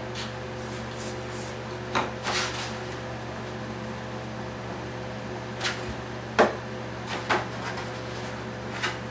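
Light knocks and scrapes of foam-board fuselage pieces being handled and set against the workbench: a handful of separate bumps, the loudest about six seconds in, over a steady hum.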